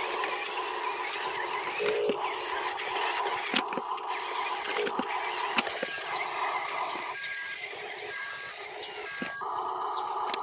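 Huina RC dump truck's small electric drive motor and plastic gearbox whirring steadily as it drives over loose dirt and stones, with scattered light clicks.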